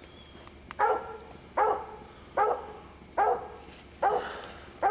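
A coon dog barking steadily at the tree, about one bark every 0.8 seconds: a treed bark, the sign that the dog has a raccoon up a tree, which the hunters take for a den tree.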